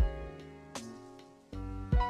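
Background music: instrumental track with plucked guitar-like notes over a steady drum beat.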